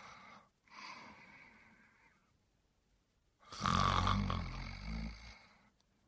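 A person snoring: a faint breath about a second in, then one loud, low-pitched snore lasting about two seconds.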